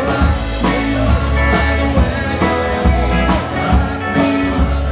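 A band playing: electric guitar, bass and drum kit with a steady beat.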